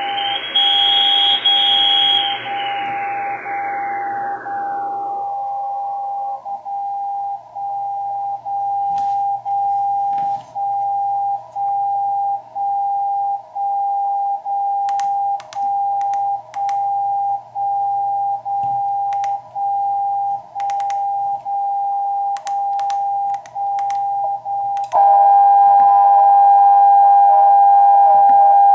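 Reuter RDR54 receiver in CW mode on the 75 kHz longwave carrier, heard as a steady 800 Hz beat tone that drops out briefly about once a second, like time-signal pulses. It sits over receiver hiss that shrinks to a thin band in the first five seconds as the filter bandwidth is cut from 4400 Hz to 400 Hz. Near the end the receiver is retuned to a strong shortwave broadcast carrier on 6075 kHz, and the tone gets louder with more noise around it.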